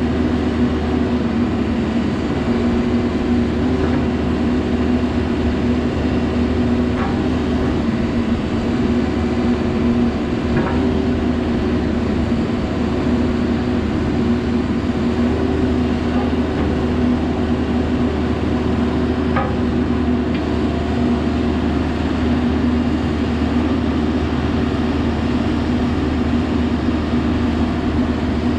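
Caterpillar 420F backhoe loader's four-cylinder diesel engine running at a steady speed, with a few faint knocks.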